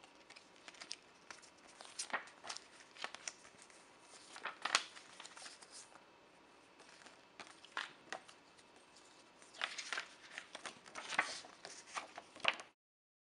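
Card and paper rustling and crackling as a CD sleeve, disc and paper lyric booklet are handled and opened, in irregular short bursts that are loudest near the middle and over the last few seconds. The sound stops abruptly near the end.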